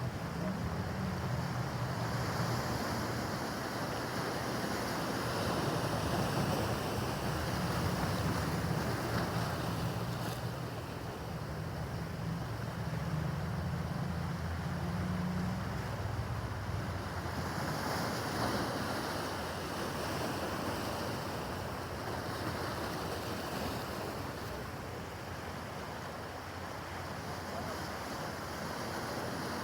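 Waves washing and breaking in a rough harbor, with wind buffeting the microphone. A low rumble underneath fades out about halfway through.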